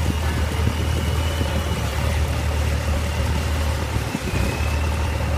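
Boat engine running steadily: a low drone with a faint high whine above it, dipping briefly about four seconds in.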